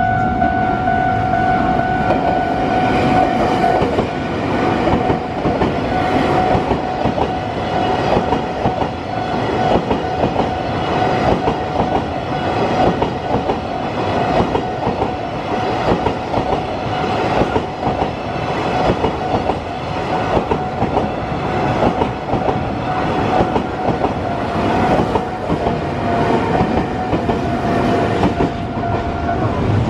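M250 series Super Rail Cargo electric freight train running past over a level crossing, its wheels clattering over rail joints in a steady rhythm. The crossing's electronic warning bell rings in a steady tone over the train and stops near the end.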